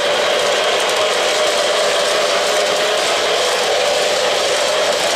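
O-gauge model train running on three-rail track: a steady mechanical rattle and whir of metal wheels and motor gearing.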